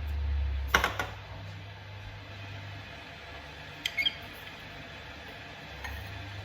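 Low steady hum of a room, with a few short clicks or knocks: a quick cluster a little under a second in, the loudest, then two lighter clicks with a brief high ring around four seconds in.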